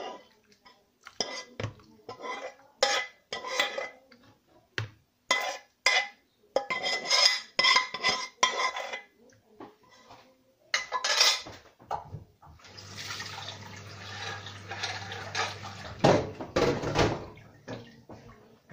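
Kitchen clatter of dishes and cutlery: plates, bowls and utensils clinking and knocking in quick irregular bursts. Past the middle comes a few seconds of steady rushing noise with a low hum, and then more clattering.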